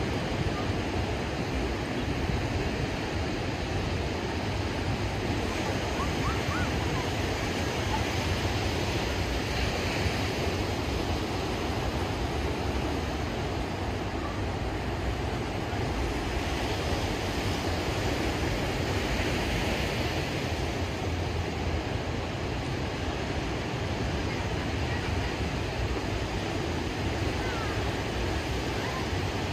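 Ocean surf breaking on a sandy beach: a steady rushing wash, with waves swelling louder a few times.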